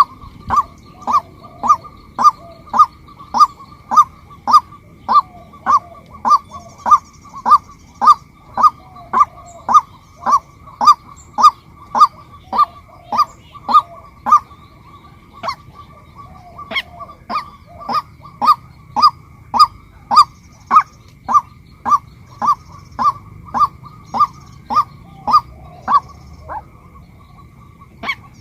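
Female white-breasted waterhen giving its call, a short single note repeated over and over at about two calls a second, with a brief pause near the end.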